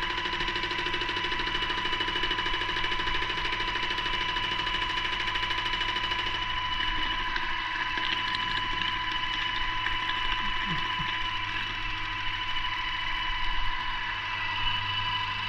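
Paint sprayer running with a steady whine, spraying woodwork.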